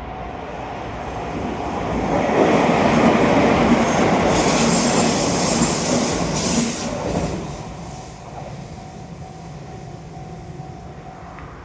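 A train on the Tokaido Line passing over a level crossing: it swells to its loudest about two seconds in, with a high hiss in the middle, and dies away after about eight seconds. The crossing's warning bell rings steadily throughout and stops near the end.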